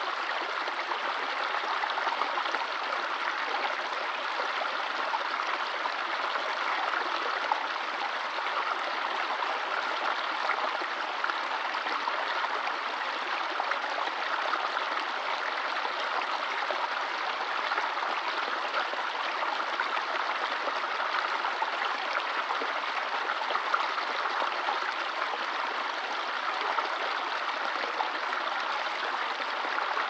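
Shallow rocky stream running over stones in a small cascade: a steady, even rush of water with no change.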